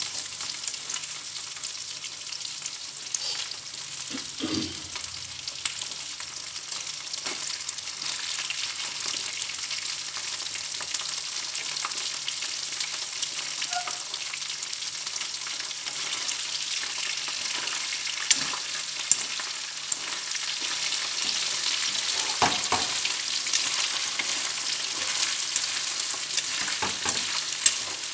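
Shrimp sizzling in hot oil in a frying pan as they are stirred and turned with chopsticks, with a few sharp clicks. The sizzle grows louder in the second half.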